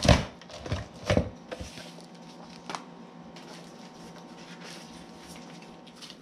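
Cinch binding punch working through a stack of paper: the handle comes down with a loud clunk at the start, followed by a few sharper clacks over the next couple of seconds and one more a little later as the punched sheets are handled, then only faint handling noise.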